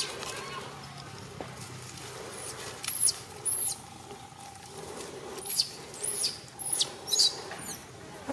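Baby macaque squealing in short, high-pitched cries that each fall in pitch. There is a pair of squeals about three seconds in, then a quick run of about five more in the second half.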